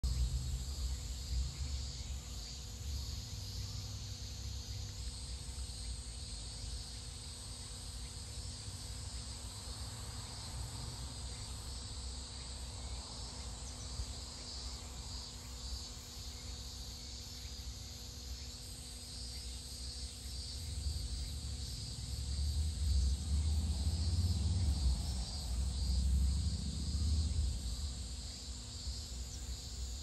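Steady high-pitched chorus of insects, with a low rumble that swells about two-thirds of the way through and fades again near the end.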